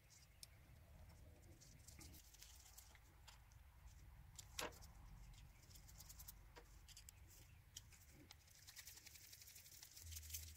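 Near silence with faint, scattered small clicks and taps of metal parts as a hand crank drill is put back together, the crank arm being fitted to the gear wheel. One click about four and a half seconds in is a little louder, and the clicks come more often near the end.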